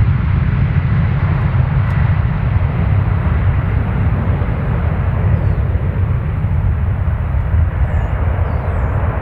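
Jet airliner's engines at takeoff power: a loud, steady deep rumble with a hiss above it.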